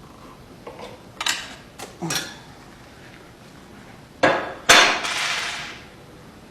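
Metal clinking and knocking as tools and parts are handled: three sharp knocks, then two louder ones about four seconds in, the last trailing off into a rattle lasting about a second.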